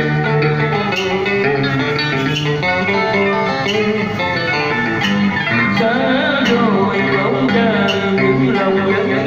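Song's instrumental passage, led by plucked guitar over held tones and a steady bass.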